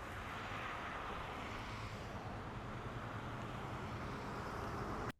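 Steady background rumble with a hiss and a low hum, which cuts off abruptly near the end.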